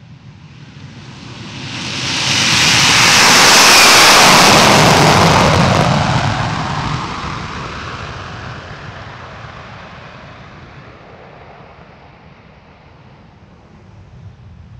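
B-1B Lancer's four turbofan jet engines at takeoff power as the bomber lifts off and goes by: a roar that swells to a peak a few seconds in, then slowly fades away.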